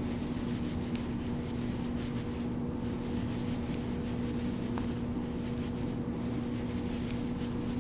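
Steady background hum: a constant low tone over an even hiss, with a few faint ticks.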